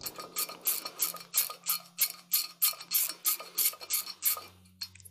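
Socket ratchet clicking, about four clicks a second, as a 10 mm bolt is backed out of an Eaton M90 supercharger; the clicking stops near the end.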